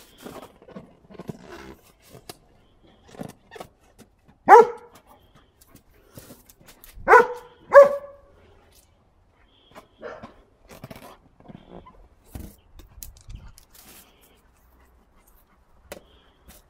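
German Shepherd barking: one loud bark about four seconds in, then two more in quick succession about three seconds later, and a weaker one near ten seconds. Faint short scuffles fill the gaps between the barks.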